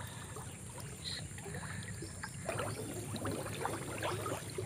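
Shallow muddy water sloshing and splashing, with many small irregular splashes and drips, as hands haul a set hook line with a caught snakehead up through the water.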